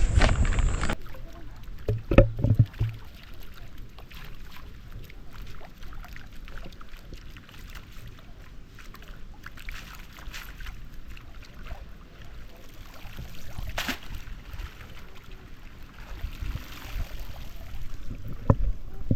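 Water sloshing and splashing in a shallow pond, with scattered knocks. The loudest part is a splash about two seconds in, after which it stays low and uneven.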